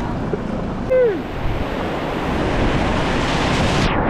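Rushing whitewater and splashing around an inflatable kayak as it paddles into a rapid, with wind buffeting the microphone. A brief falling shout comes about a second in. Near the end the sound suddenly dulls as spray breaks over the camera.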